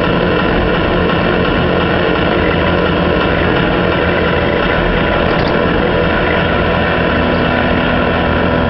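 Doosan DX300LC excavator's diesel engine running steadily while it works, with a faint click about five seconds in.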